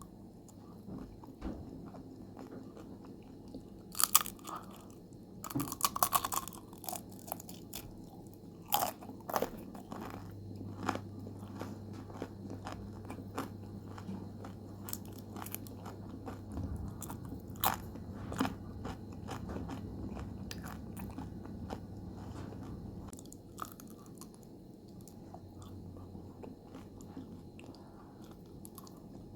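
Close-up biting and chewing of crispy homemade potato chips: irregular sharp crunches among quieter chewing, the loudest bites about 4 and 6 seconds in.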